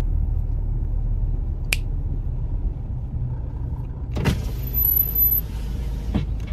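Steady low rumble of a car heard from inside the cabin, with three short clicks or knocks along the way.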